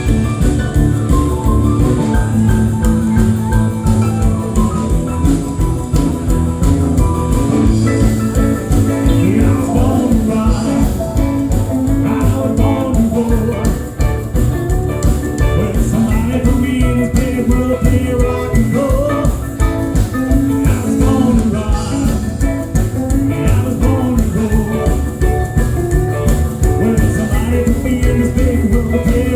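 Live band playing 1950s-style rock and roll with a steady drum beat.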